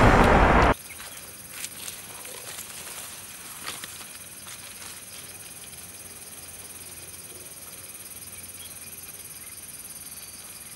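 Music cuts off suddenly just under a second in, leaving a steady, high-pitched chorus of insects chirring in forest undergrowth. A few faint footsteps tap on the dirt path in the first few seconds.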